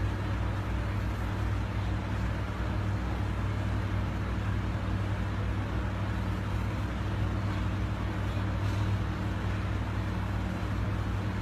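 Steady low mechanical hum with an even background hiss, unchanging throughout.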